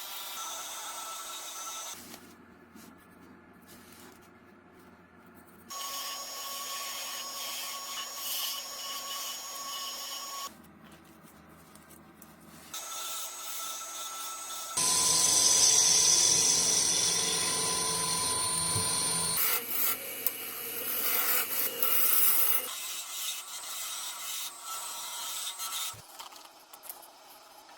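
Woodturning on a lathe: a tool rubbing and scraping against spinning wood, with the lathe running under it. The sound changes abruptly several times and is loudest for a few seconds in the middle.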